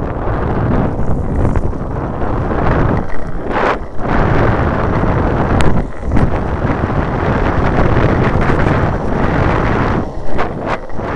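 Loud wind buffeting on the microphone of a camera moving fast downhill on a narrow paved lane, over a low rumble from the road. There are a few brief dips, about four, six and ten seconds in.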